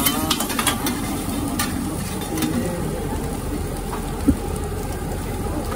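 Shredded vegetables and egg sizzling on a flat iron griddle, with metal spatula and scoop scraping and clacking against the plate in the first couple of seconds. A single sharp clank about four seconds in.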